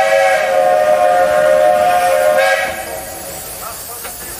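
Steam locomotive's whistle blowing one long steady blast of several close tones that cuts off about two and a half seconds in, leaving a faint hiss of steam.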